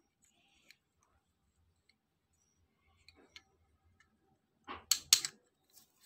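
Two metal Beyblade Zero G tops being handled, with a few faint clicks, then a quick cluster of louder clacks about five seconds in as they knock together.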